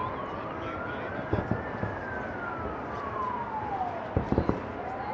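A siren wailing in a slow rise and fall, climbing for about two seconds, falling for about two more, then starting to climb again near the end. Under it, distant fireworks go off in two clusters of bangs, about a second and a half in and again just after four seconds.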